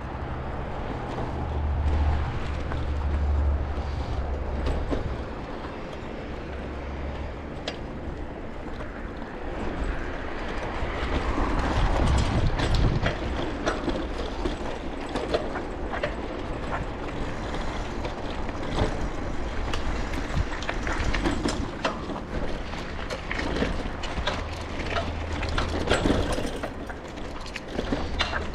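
A bicycle rattling and clicking as it rides over a rough surface, with a steady low rumble of wind buffeting the microphone.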